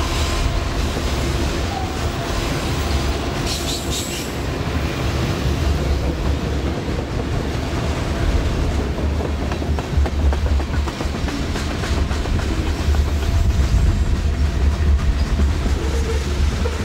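Freight train rolling past: a steady low rumble of the rail cars and wheels on the track, growing a little louder toward the end.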